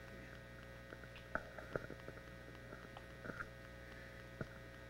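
Steady electrical mains hum through the PA system, with a few faint clicks and knocks from a handheld microphone being passed to another speaker.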